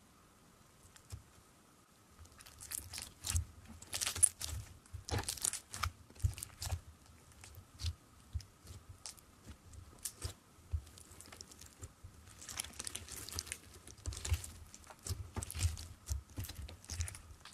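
Clear slime full of colourful beads being pulled and pressed by hand, giving irregular crackling, crunchy clicks and squishes in clusters, thickest a few seconds in and again near the end.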